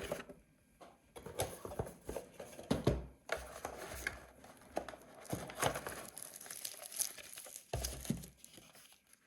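Packaging rustling and crinkling as the alarm clock's box is unpacked by hand, with small clicks and scrapes and two dull thumps, about three seconds in and near the end, as items are set down.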